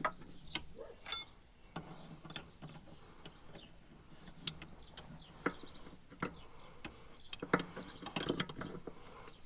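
Irregular metallic clicks and knocks from hand tools and fittings as a cap is worked off a new hydraulic hose end.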